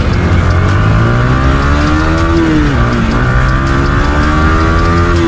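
Yamaha R15 V3's 155 cc single-cylinder engine accelerating from a standstill, its pitch climbing steadily. About three seconds in it dips for an upshift, then climbs again and drops for another shift near the end.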